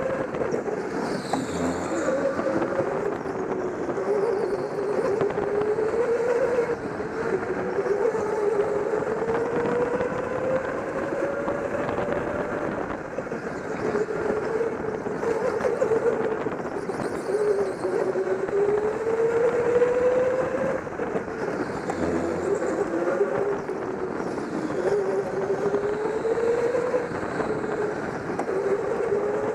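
Go-kart motor heard from on board while lapping: its pitch climbs for a few seconds as the kart speeds up, then drops back as it slows, over and over.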